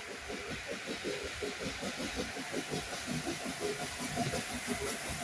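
Three-cylinder LNER A4 Pacific steam locomotive No. 4498 working a passenger train, its exhaust beats coming in a quick, even rhythm over a steady hiss and growing louder as it approaches.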